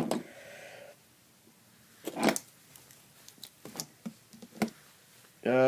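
Handling noise from small pocket tools being picked up and set down: a brief rustle about two seconds in, then a few light clicks.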